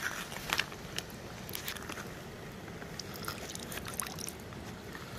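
Shallow creek water sloshing around stones as a bare hand reaches in and moves among the rocks, with scattered small splashes and clicks.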